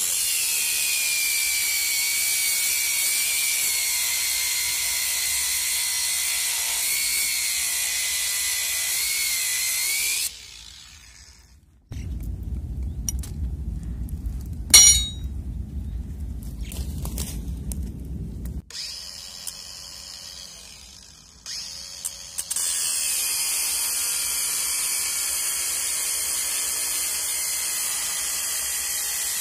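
Ryobi cordless angle grinder cutting through thin smooth steel rebar with a loud, high-pitched whine, then stopping about ten seconds in. After a pause with a low rumble and a single sharp click, it starts again and cuts steadily through the last third.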